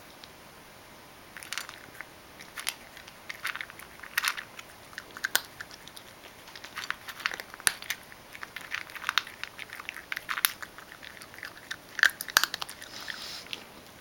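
Ragdoll cat chewing dry kibble, a run of irregular crisp crunches that begins about a second and a half in.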